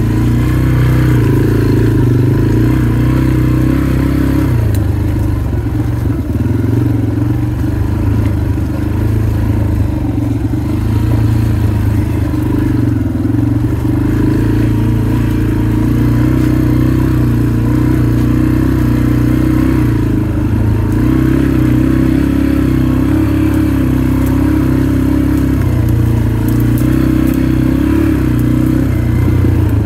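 Motorcycle engine running at low, fairly steady revs while riding a dirt trail, the pitch rising and falling slightly with the throttle.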